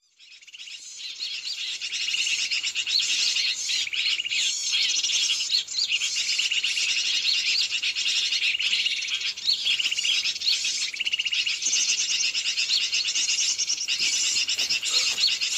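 A dense chorus of many small birds chirping and chattering without pause: the 'noisy birds' (burung ribut) MP3 lure call played to draw wild birds such as bulbuls down to the lime sticks. It fades in over the first second or two, then stays steady.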